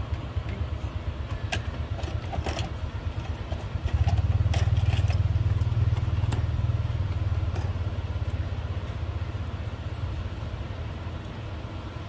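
A low, pulsing engine rumble that gets louder about four seconds in and then slowly fades, with a few light clicks over it.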